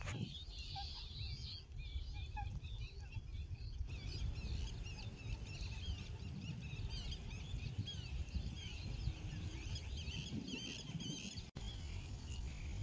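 Many small birds chirping and twittering continuously in short, quick calls, over a steady low rumble. The sound cuts out for an instant near the end.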